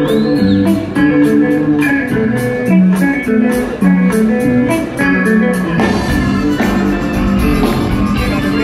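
Rock band playing live, recorded from the audience: electric guitar lines over bass and a steady drum beat, with the band getting fuller and heavier about six seconds in.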